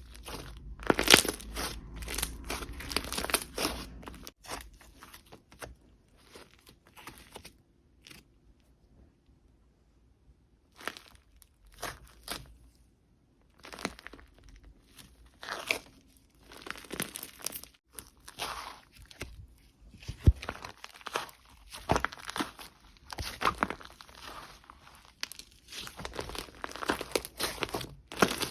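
Handmade slime being pressed, squished and stretched by hand, giving irregular crackling and crunching pops in bursts. It goes quiet for several seconds in the middle, then the crackling picks up again.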